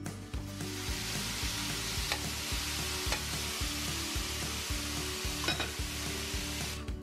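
Diced chicken sizzling steadily in hot oil in a cast-iron skillet while being stirred, with a couple of light clicks of the utensil against the pan, about two seconds in and again past five seconds. Soft background music runs beneath.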